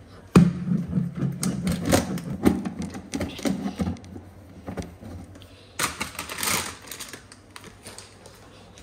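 A plastic container and cabinet being handled, then a snack packet crinkling as dry namkeen is tipped into a bowl. It opens with a run of irregular clicks and rattles, and a louder rustling burst comes about six seconds in.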